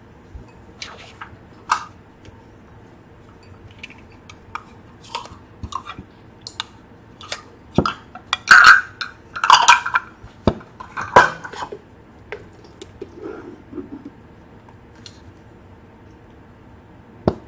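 Spatula scraping mayonnaise from a plastic jar and tapping against plastic measuring cups: scattered light clicks and knocks, busiest and loudest about halfway through.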